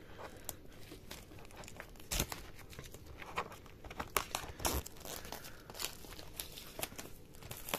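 Plastic packaging crinkling and tearing by hand as a DVD box set is handled, with irregular clicks and crackles.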